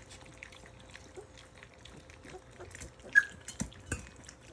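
Great Dane puppies eating wet food from a bowl: a steady patter of small wet lapping and smacking clicks. One short, sharp high-pitched sound about three seconds in stands out above the rest.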